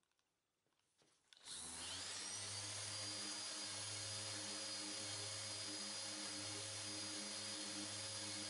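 Near silence, then about a second and a half in a random orbital sander with vacuum dust extraction starts up. Its whine rises to speed and it runs steadily with a low hum as it sands primer on a car panel.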